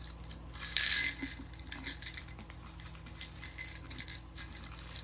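Small pieces of costume jewelry clinking and jingling as they are picked through by hand, with a louder jangle about a second in and lighter clicks after.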